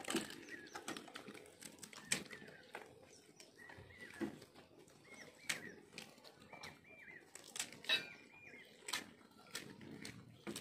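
Crisp pani puri shells being cracked and crunched, heard as scattered sharp clicks, with short bird chirps in the background.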